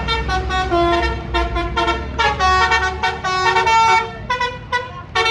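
Bus telolet horn playing a rapid melody of short, separate notes that jump between pitches, over the low rumble of a bus engine that fades out about three seconds in.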